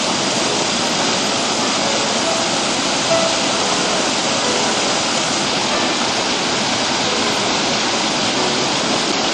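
Steady, loud rush of falling water, an even hiss with no rhythm.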